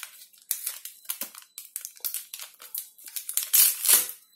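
Crinkling and crackling of a foil-lined tea bag sachet being torn open by hand and the tea bag pulled out: a run of irregular rustles, loudest a little after three and a half seconds in.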